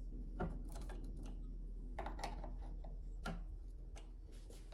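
Irregular metallic clicks and light rattles of a chainsaw's new chain and guide bar being handled and worked into place. The brand-new chain is a very tight fit.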